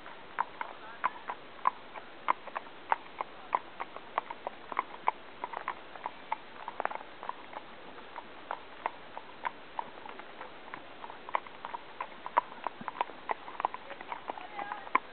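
Hooves of horses walking on a hard road: an irregular run of sharp clip-clops, several a second, with the steps of more than one horse overlapping.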